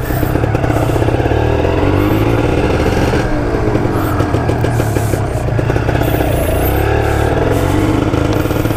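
Two-stroke motorcycle engine running under way, its pitch rising and falling as the rider opens and eases the throttle.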